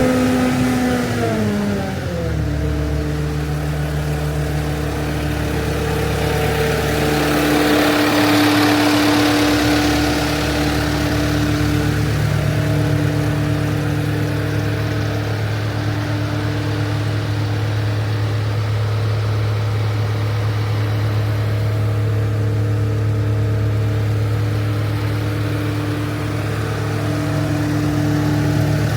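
Caterpillar 299D2 loader's four-cylinder Caterpillar C3.8 diesel engine running. Its speed drops over the first two seconds, then it runs steadily at the lower speed.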